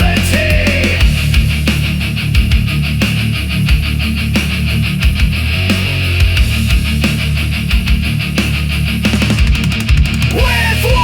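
Loud heavy-metal style rock music with a fast, driving drum beat.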